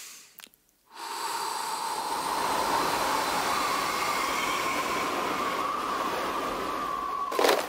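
Cartoon sound effect of a long, steady blow of rushing air, the wolf's huff at the straw house. It starts about a second in and cuts off near the end, with a faint steady tone under the rush.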